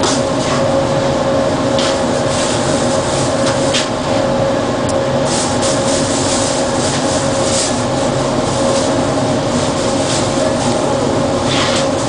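Bombardier ART Mk II driverless metro train heard from inside the front car, running at steady speed along its elevated track. A constant whine from its drive sits over even running noise, with a few short clicks now and then.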